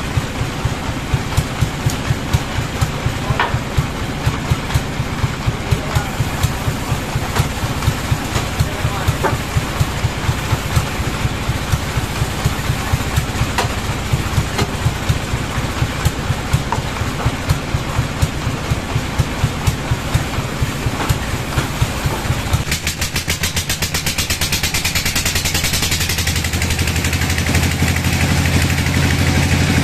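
Band sawmill machinery running with an engine-like idle and a regular knock, about three beats a second. About 23 seconds in the knocking gives way to a smoother, steady hum, and a hiss builds near the end as the mill comes up to cutting speed.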